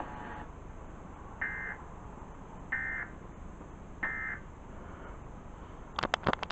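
Emergency Alert System end-of-message data tones off a radio broadcast: three short, identical buzzing bursts of digital data about a second and a quarter apart, over steady radio hiss, marking the close of the required monthly test. About six seconds in, a quick cluster of sharp clicks.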